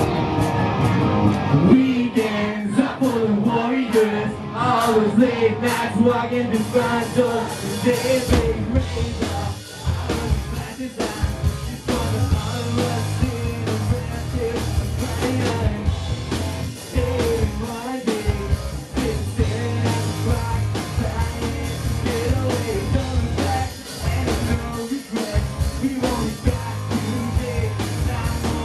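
Live rock band playing loudly with a lead singer. The bass and drums come in fully about eight seconds in.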